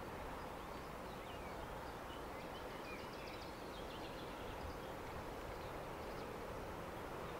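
Faint steady outdoor background noise, with a few short bird chirps about two seconds in.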